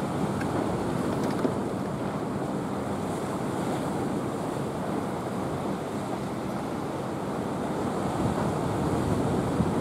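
Sea swell washing and surging steadily, with wind buffeting the microphone; a little louder near the end.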